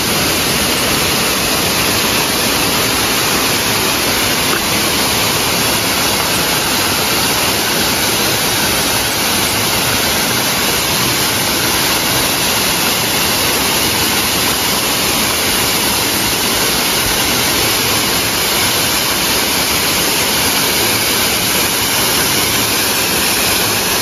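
A waterfall's falling water rushing loudly and steadily, a dense unbroken wash of sound.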